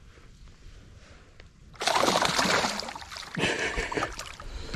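Water splashing in two loud bursts, the first about two seconds in and the second shortly after: a hooked bowfin (mudfish) thrashing at the surface.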